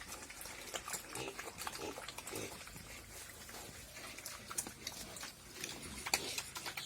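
Pigs grunting at irregular intervals, with many short clicks and knocks mixed in.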